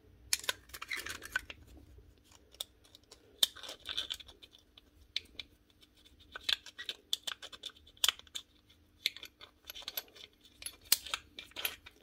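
Small flat-blade screwdriver scraping and ticking against the inside of a Hitachi CN16SA nibbler's steel punch guide, clearing out compacted grit and steel particles. Irregular short scratches and metal clicks come every second or so.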